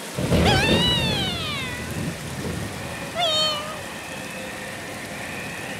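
Cat meows: one long meow falling in pitch, then a shorter one about three seconds in.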